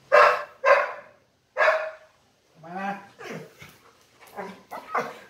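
Labrador retriever barking three times in quick, loud, short barks, then a run of lower pitched whines and grumbles that bend up and down: a fussy dog demanding more massage.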